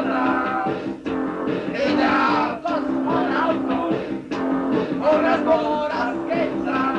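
Punk rock band playing, with electric guitar and a voice singing, on a lo-fi dictaphone recording made in a living room.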